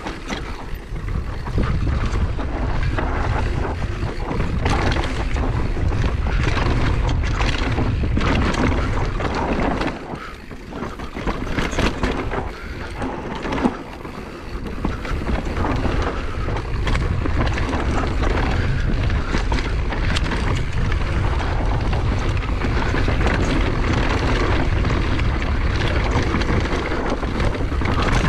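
Wind buffeting a GoPro microphone at riding speed over the rattle and rumble of a mountain bike descending a bumpy, dusty dirt trail. The noise dips briefly about ten seconds in and again a few seconds later.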